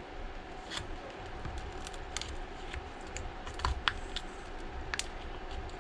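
Irregular small clicks and taps of a pry tool working under the edge of an iPad mini 4's glass screen, prying against adhesive that is still holding.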